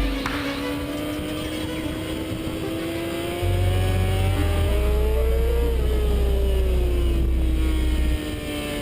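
Motorcycle engine running at a fairly steady speed, its pitch rising a little and then easing off. A deep, loud low hum comes in about three and a half seconds in and stops near the end.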